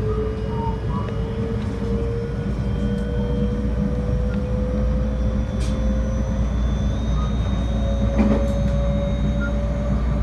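Electric train heard from inside the car while running: a steady low rumble with a motor whine that rises slowly in pitch as the train gains speed. A few short knocks come through, the clearest one about eight seconds in.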